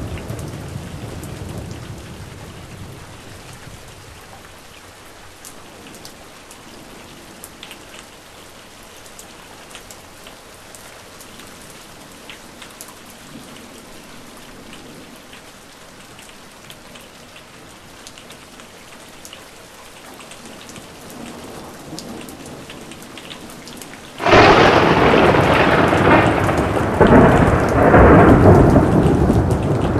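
Heavy thunderstorm with steady rain. A low thunder rumble dies away over the first few seconds. About 24 seconds in, a sudden loud thunderclap breaks and rumbles on, swelling again near the end.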